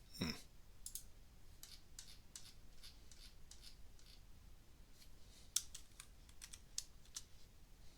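Sparse computer keyboard and mouse clicks, a dozen or so irregularly spaced, bunched together a little past halfway. There is a brief falling swish about a quarter second in.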